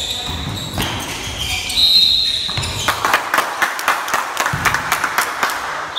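Basketball game sounds: a referee's whistle blows once, briefly, about two seconds in. After it comes a quick run of sharp knocks from the ball bouncing and players on the court, with voices around.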